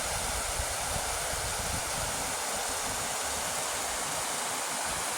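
Steady rushing of a mountain creek's flowing water.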